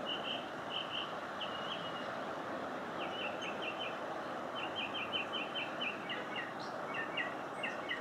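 A songbird singing series of short, high repeated notes and quick trills over a steady background rush of noise.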